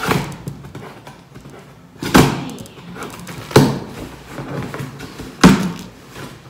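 Four dull thumps on a large cardboard shipping box as it is handled, spaced about one and a half to two seconds apart.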